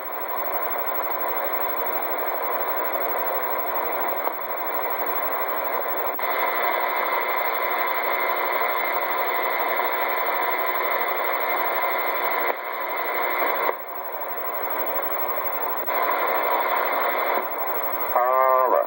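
Radio static from a receiver's speaker: a steady hiss with faint steady tones in it, its level shifting up and down several times.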